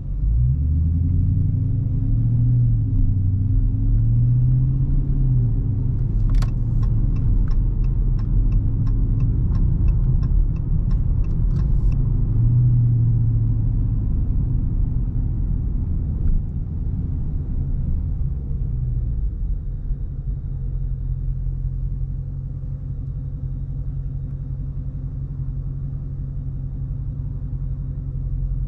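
Dodge Charger R/T's 5.7-litre HEMI V8 driving, heard from inside the car: it pulls up in pitch at the start, then rises and falls with the throttle. About six seconds in there is a run of even ticks, about three a second, lasting some five seconds. In the last third the engine settles to a lower, steadier drone.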